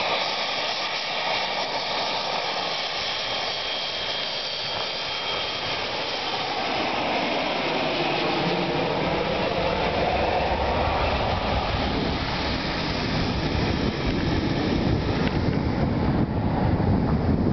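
Boeing 737-200 on landing approach flying low overhead, its Pratt & Whitney JT8D turbofan engines running. A high whine is heard a few seconds in, the hiss sweeps up and down in pitch as the jet passes over, and then a deep rumble builds and grows louder toward the end.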